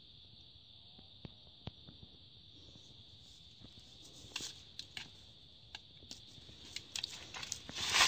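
Steady high-pitched insect drone, with scattered light clicks and rustling that grow busier in the second half as a hand handles the plastic-wrapped avocado graft and brushes through the leaves.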